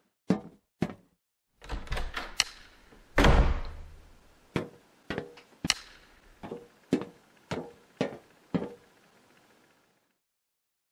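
A run of sharp knocks and bangs: two quick knocks, a short clatter, a heavy thud with a low rumble about three seconds in, then eight evenly spaced knocks about twice a second.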